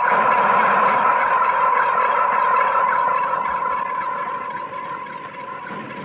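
A steady machine-like rattling noise with a high steady hum, slowly fading away.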